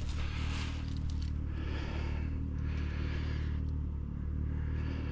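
A small engine running steadily at idle, with a rasping, scraping stroke repeating about once a second over it.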